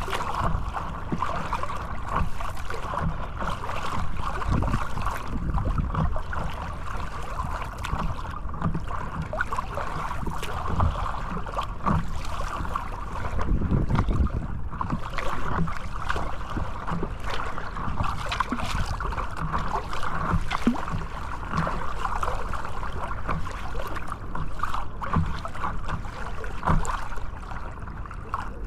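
Sea water sloshing and splashing against the microphone, a steady hiss with a low rumble and scattered short clicks.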